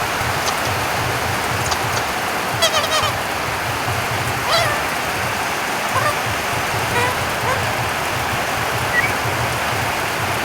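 Steady rain falling, with a bird calling over it: a quick run of notes about two and a half seconds in, then a few scattered short chirps.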